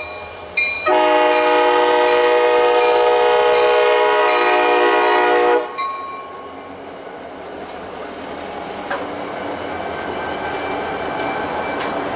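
Freight diesel locomotive's air horn sounding a chord of several notes: a short toot, then one long blast of about five seconds that cuts off sharply. The locomotives then pass close by, and the freight cars roll past with a steady rumble and clatter of wheels on the rails that grows louder near the end.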